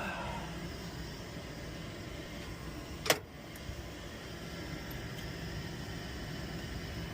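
Gas furnace running in its start-up sequence: a steady low motor hum, with one sharp click about three seconds in.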